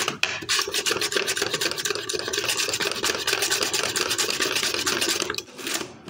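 A potato being julienned on a Bruno (Kitchen Master) plastic salad cutter, pushed quickly up and down over the blades in a scraper hand guard: a fast, even rasping scrape of strokes, easing off briefly near the end.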